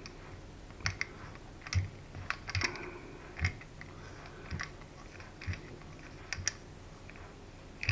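Irregular light clicks and taps of small metal parts worked by hand: a pilot nut being threaded onto a four-stroke glow engine's crankshaft against the flywheel, about one click every half second to a second.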